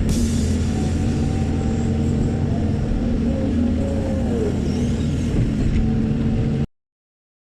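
Excavator's diesel engine running with a steady drone. It cuts off suddenly near the end.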